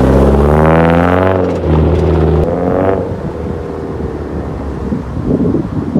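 Car engine running loudly, revved once, its pitch rising and falling about a second in, then dropping to a lower, rougher rumble about halfway through.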